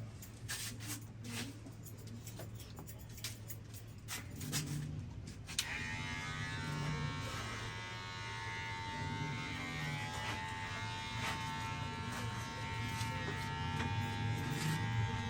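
Scattered soft clicks over a low hum, then about five and a half seconds in a small handheld electric motor switches on and buzzes steadily.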